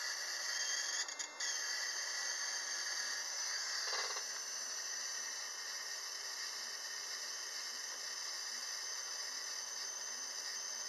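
12-volt ignition coil being fired continuously by a MOSFET driver: a steady high-pitched hissing buzz of the repeated sparking, with a brief break about a second in.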